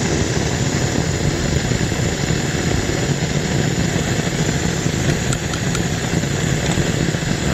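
Handheld gas torch flame burning steadily against a padlock to melt its plastic disc container.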